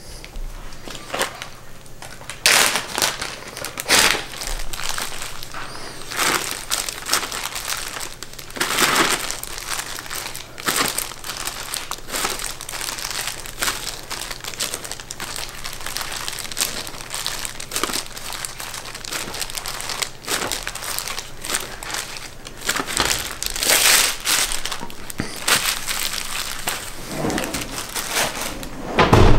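Plastic zip-top freezer bags and thin disposable plastic gloves crinkling in irregular bursts as the bags are handled and filled with green onion pieces, with a few louder crackles.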